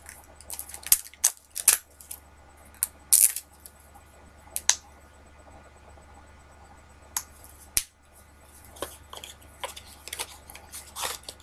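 A small plastic skincare bottle being handled: a scattering of short sharp clicks and taps, about eight in all, the loudest about three seconds in, with a quiet stretch in the middle.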